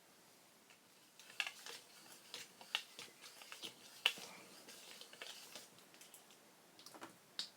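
Thick electrical tape being pulled off its roll and wound around a large electrolytic filter capacitor: a faint run of crackles and sharp clicks for a few seconds, then a few more clicks near the end.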